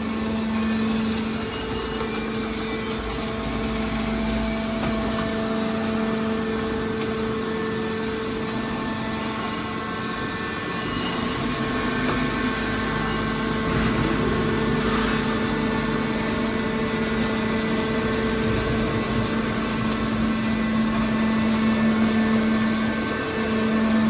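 Hydraulic metal baler's power unit running steadily, a constant hum with a few steady tones.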